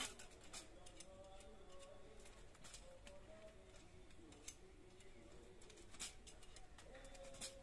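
Faint metallic clicks, a few seconds apart, from a hand tool working the cut wire ends of chain-link fencing mesh.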